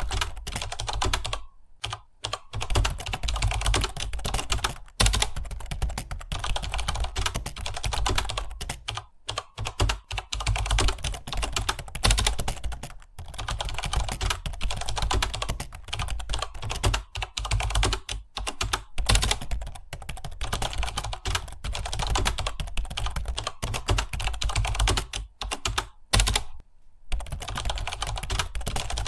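Fast continuous typing on a computer keyboard: rapid key clicks with a few short pauses, about two, nine, thirteen and twenty-seven seconds in.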